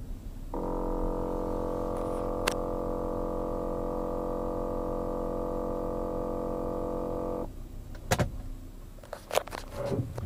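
Loud steady 'brrrrr' buzz from the front passenger side of a 2007 Volkswagen Jetta. It comes on abruptly, holds one pitch for about seven seconds, then cuts off abruptly. A fault that a new air filter has not cured. A few sharp clicks or knocks follow near the end.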